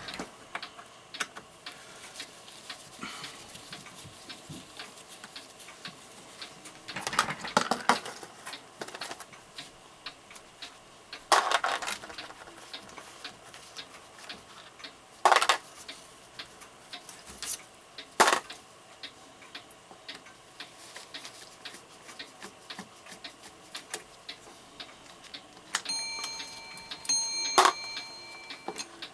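Scattered clicks and knocks of metal parts being handled as the clock movement is worked off its backboard; near the end the clock's small bell, which serves both strike and alarm, rings twice with a lingering tone.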